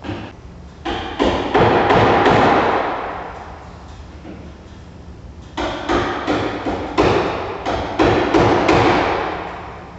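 Two clusters of heavy strikes, several blows in quick succession each time, ringing on and dying away over a couple of seconds.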